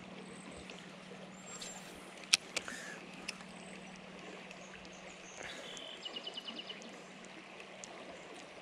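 Shallow stream water flowing steadily over a riffle. There is one sharp click a little over two seconds in, with a few lighter clicks after it, and a short high chirping trill about six seconds in.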